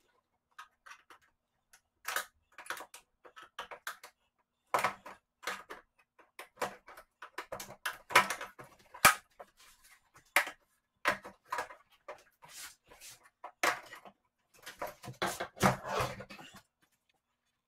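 Hands handling the disassembled LED TV, making irregular clicks, taps and scrapes of its plastic and metal parts. Near the end comes a denser run of rubbing and knocking as a sheet of polystyrene foam is laid over it.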